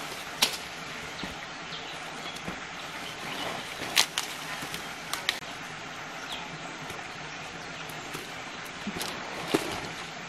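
Leaves rustling and a few sharp snaps as june plum fruit and leaves are picked by hand from a branch. The loudest snap comes about four seconds in, over a steady background hiss.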